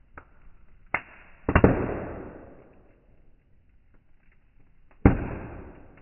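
Burning firewood crackling and popping: three loud, sharp pops, about a second in, a double pop at a second and a half, and one near the end, each trailing off in a fading crackle.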